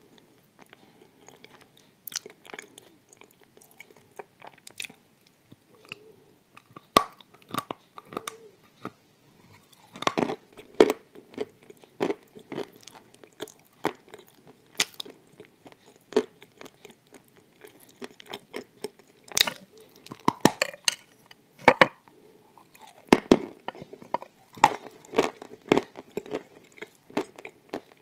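Pressed Turkestan edible clay tiles being snapped, bitten and chewed close to the microphone: irregular sharp crunches, sparse at first and coming thick and fast from about a third of the way in.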